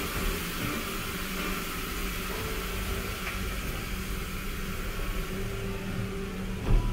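Steady rushing noise, with faint background music underneath and a thump near the end.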